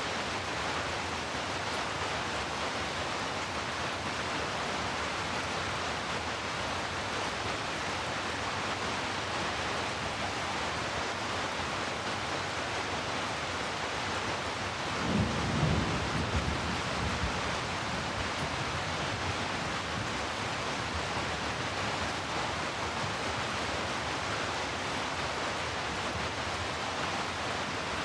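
Steady heavy rainfall, an even rushing hiss, with a brief low rumble about halfway through.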